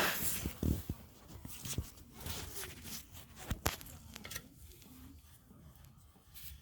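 Handling noises of hands-on work with car parts: rustling, scraping and a few sharp clicks and knocks. They are busiest in the first couple of seconds and die down to faint rustles after about four seconds.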